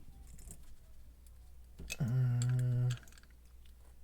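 Small metal clicks of a screwdriver slipping and catching in the screw heads of a lock held in a vise. About two seconds in, a man lets out a steady, held 'hmm' for about a second.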